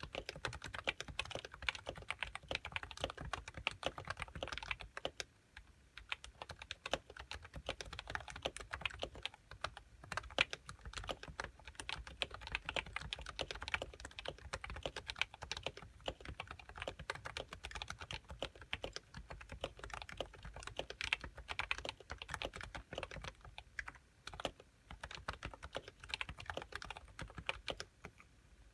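Continuous fast typing on a Happy Hacking Keyboard Professional 1 with Topre 45 g uniform-weight electrostatic-capacitive switches and HiPro keycaps, a dense run of soft keystrokes with a couple of brief pauses.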